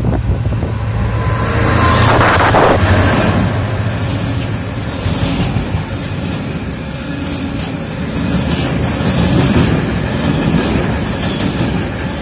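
A GB Railfreight Class 66 diesel locomotive, with its EMD two-stroke V12 engine running, passes close by, loudest about two seconds in. After it comes a long rake of hopper wagons rolling past, their wheels clattering over the rail joints.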